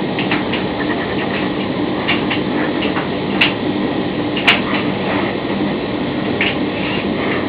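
Tumble dryer running, its drum turning with a steady mechanical hum, with scattered sharp clicks and knocks, the loudest about three and a half and four and a half seconds in.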